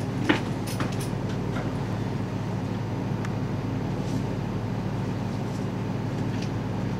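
Steady low mechanical hum, with a few faint clicks and taps in the first two seconds.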